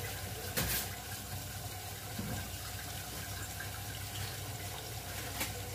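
Pot of meat, lentils and bottle gourd cooking on a gas stove, a steady sizzling hiss, with a brief click about half a second in.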